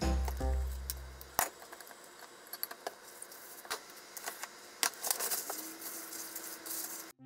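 Background music that stops about a second and a half in, then light kitchen clatter: wooden chopsticks clicking against a glass mixing bowl and dishes being set down on the counter, a scattering of separate clinks and taps.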